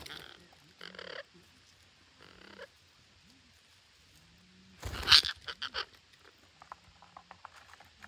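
Parakeets calling with short harsh squawks, then one loud squawk about five seconds in followed by a quick run of shorter calls, and faint clicks near the end.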